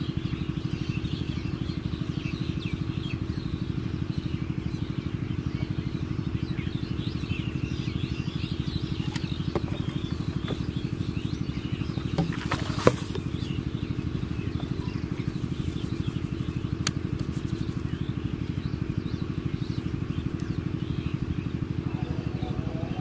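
A small engine running steadily with an even, rapid pulse, with a couple of sharp clicks about halfway through.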